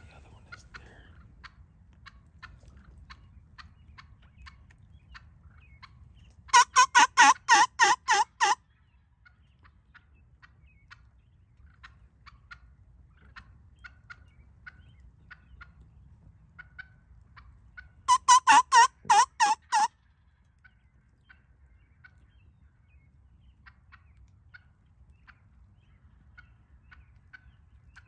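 A wild turkey tom gobbles twice, loud and close. Each gobble is a rapid rattling run of about ten notes lasting roughly two seconds, and the two come about ten seconds apart. Faint short calls sound between them.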